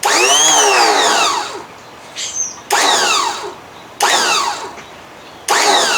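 Evinrude 55 hp outboard's electric starter motor whirring free in four short runs. The first rises in pitch and winds down over about a second and a half; the next three each start sharply and wind down. The starter is spinning backwards, so its drive does not engage the flywheel.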